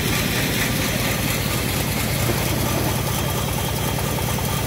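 Stationary engine powering a homemade bandsaw mill, idling with a steady low pulse while no log is being cut.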